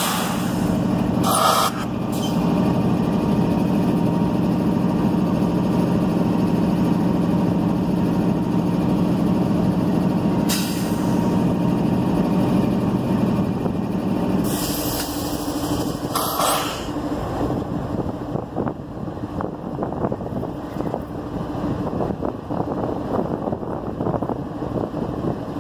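Diesel locomotive idling close by with a steady low drone. Short bursts of air hiss from its air system come about a second and a half in and about ten seconds in, with a longer hiss around fifteen seconds. The engine drone thins out after about fourteen seconds.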